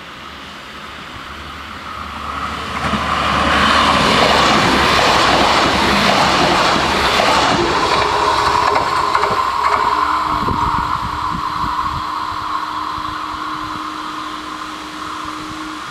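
Alstom Coradia LINT 81 diesel multiple unit running over the level crossing: it grows louder, passes in a few seconds and slowly fades. From about two-thirds of the way in, a steady hum from the barrier drives runs as the booms lift, stopping just before the end.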